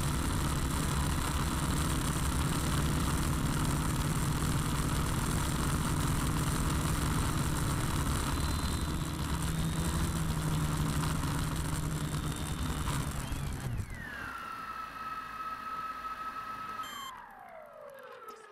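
Quadcopter's electric motors and propellers whirring heard from the onboard camera in low flight. About fourteen seconds in the noise drops sharply as it lands, leaving a steady motor whine that glides down in pitch near the end as the motors spin down.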